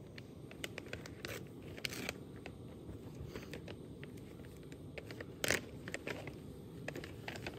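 Close handling noise: scattered crackles, clicks and scrapes, with a few short louder rustles, the loudest about five and a half seconds in.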